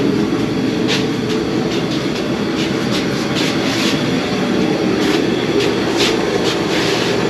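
Portable shop heater running steadily, with a few light clicks over it.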